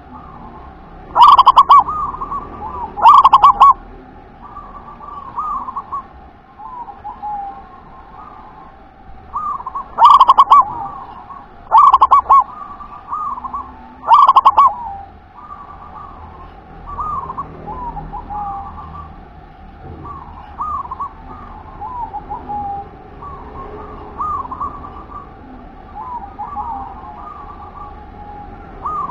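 Perkutut (zebra dove) singing its staccato cooing song: short rolling coos repeat all through, broken by five loud phrases so close and strong that they distort, the first about a second in and the last about halfway through.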